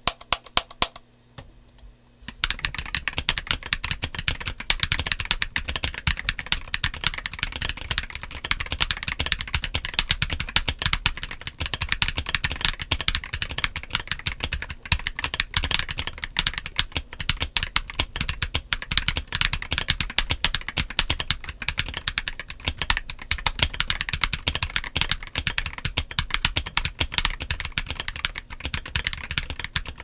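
Mechanical keyboard typing: a Monsgeek M3 TKL with stock Akko V3 Cream Yellow linear switches and Drop MT3 Cyber keycaps. A few separate key strikes come first, then fast, continuous typing starts about two seconds in.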